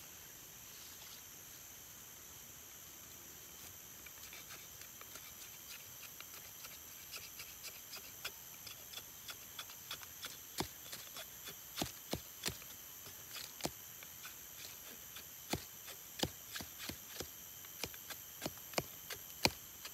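Machete blade scraping the green skin off a thin kepompon stem: a run of short, irregular scrapes and clicks, starting about four seconds in and growing louder toward the end.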